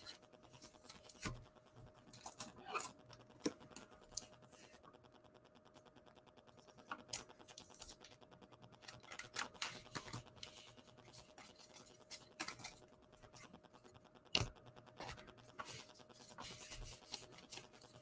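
Trading cards being handled: faint, scattered scratches, slides and light taps as cards are flicked through a stack and set down on a table.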